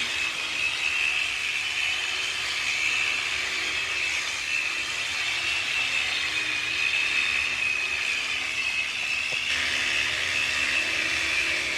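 Electric sheep shears running steadily with a high whine as the shearer works the fleece off a ewe.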